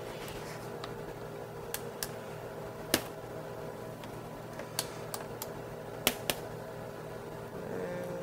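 Steady kitchen hum with scattered light clicks and clinks, the sharpest about three and six seconds in, from a wire spider strainer working in an aluminium pot of simmering water.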